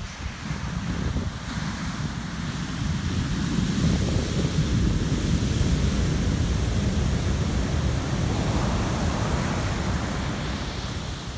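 Heavy shorebreak surf: big waves break and their whitewater rushes up the sand. The roar swells to a peak about four to seven seconds in and eases toward the end, with wind rumbling on the microphone.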